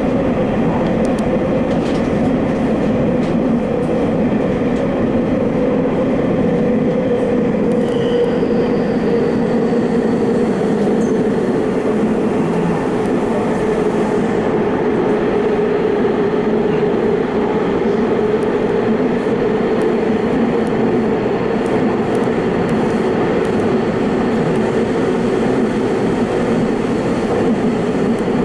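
Subway train running at speed through a tunnel, heard from inside the rear cab: a steady rumble of wheels on the rails, with a faint steady whine above it.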